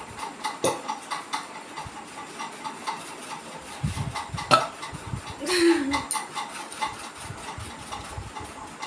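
A woman burping after drinking water: several short, low belches, with a sharp click about four and a half seconds in and the longest, loudest burp just after it.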